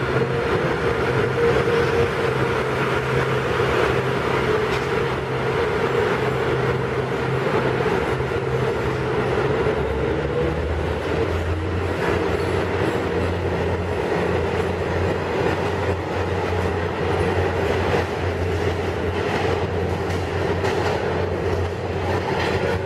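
MotivePower MP8AC-3 (MTA R-156) diesel-electric locomotive and its work train running past in a subway station, the diesel engine's drone over the noise of wheels on the rails. The low drone drops to a lower pitch about ten seconds in.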